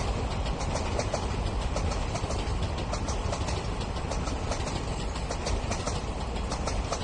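Indian Railways passenger train passing at a distance: a steady low rumble with a scatter of light irregular ticks throughout.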